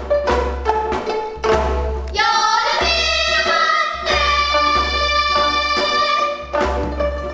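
Gayageum ensemble, plucked Korean zithers with silk strings, playing a new folk song (sinminyo) with sung vocals in unison. Plucked notes come first, then about two seconds in the singers hold a long, bending phrase over the strings, and the plucking comes back to the fore near the end.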